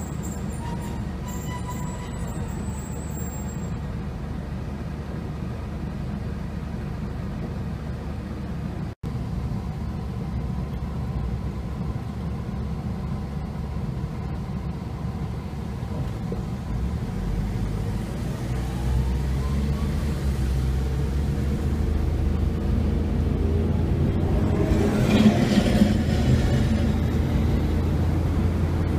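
Street noise as a Hankai tram passes by, with faint high tones in the first few seconds. After a cut about nine seconds in, a steady low rumble of car engine and road noise heard from inside the car, growing louder as the car gets under way, with a brief louder swell near the end.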